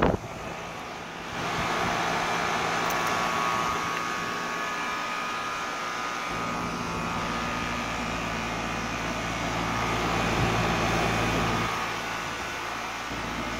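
Running central-AC condenser unit, its fan and compressor humming steadily, with misting nozzles hissing as they spray water onto the condenser coil. The hiss swells about a second in and then holds steady.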